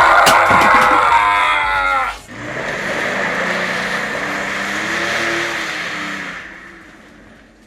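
Minivan tires squealing and its engine revving as it speeds off. The sound cuts off abruptly about two seconds in, then the engine note rises and falls and fades away.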